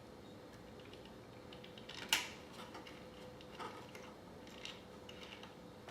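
Small clicks and taps from a clock second hand being pressed onto the spindle of a quartz clock movement. One sharper click comes about two seconds in, followed by a few lighter ticks roughly a second apart.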